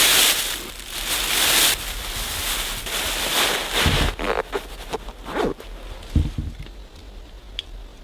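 Loud rustling and scraping of gear being handled close to the microphone for the first few seconds, then a few soft knocks and rustles that die away.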